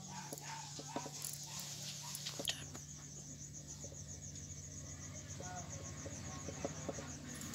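Insect chirping in a fast, even pulse, like a cricket, over a steady low hum, with a few light taps and clicks from hands working dough on a board.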